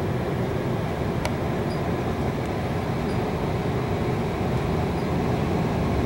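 Oil furnace blower running, a steady rush of air and motor hum, with a single sharp click about a second in, as the system goes back to stage-one heat pump heating.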